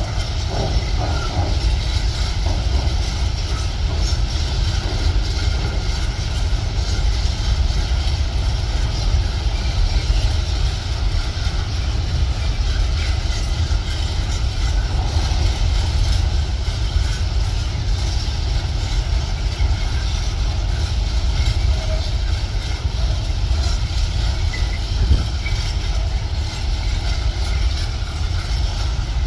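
Freight train of covered hopper wagons rolling past at steady speed: a continuous rumble of steel wheels on the rails.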